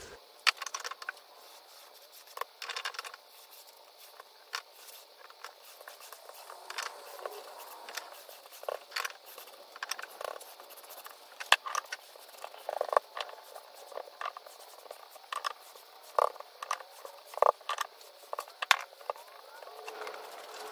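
A brush applying shellac to quilted cedar panels: soft strokes on the wood with many scattered light taps and clicks.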